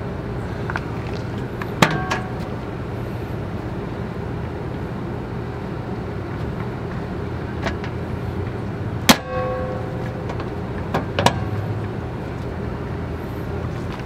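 A few sharp knocks and clicks as a metal water heater access panel is fitted and fastened onto an Airstream's aluminium side. The loudest knock, about nine seconds in, rings briefly like metal, and two more follow close together near eleven seconds. A steady low hum runs underneath.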